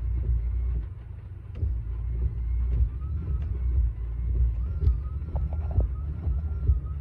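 Honda N-BOX windscreen wipers running across the glass, with a few sharp ticks as they move, over a steady low rumble from the car.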